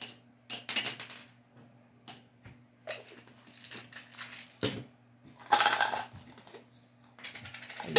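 Pills and plastic pill bottles being handled: a scatter of light clicks as pills are picked out and dropped into a plastic weekly pill organizer, with a longer rattle about five and a half seconds in.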